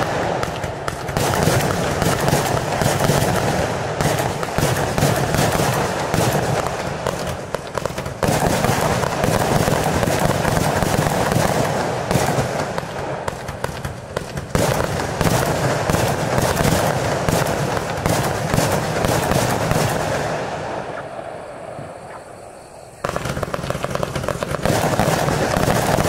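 Pyroshow Display Paradise 241-shot compound firework cake firing in a dense, rapid stream of launch thumps and bursting shells. The firing fades away about twenty seconds in, then starts again loudly a few seconds later.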